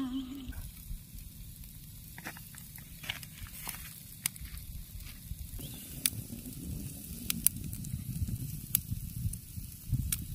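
Meat grilling over glowing charcoal: a steady low sizzle with scattered sharp crackles and pops.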